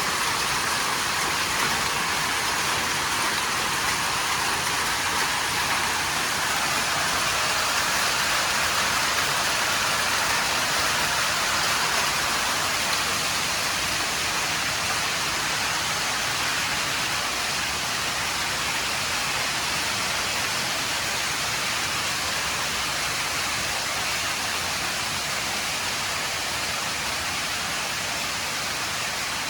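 Heavy rain pouring steadily during a thunderstorm, a dense even hiss that swells a little midway and eases slightly near the end.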